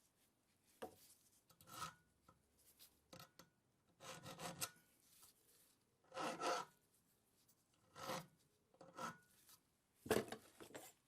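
Hacksaw cutting a length of M4 threaded rod: separate rasping strokes, a stroke every second or two, each lasting under a second.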